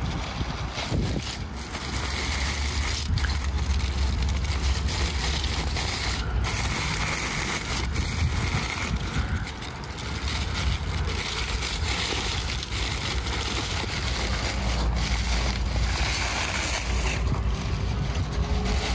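Crumpled aluminium foil and butcher paper crinkling and rustling as gloved hands pull them open around cooked beef ribs, over a steady low rumble.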